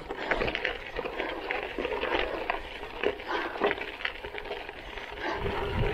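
Gravel bike tyres rolling over a loose gravel-and-dirt road: a steady crunching crackle with many small clicks and rattles.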